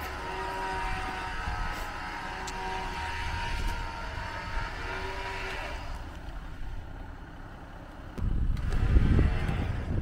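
Jeep engine idling steadily. About eight seconds in, loud wind buffeting on the microphone covers it.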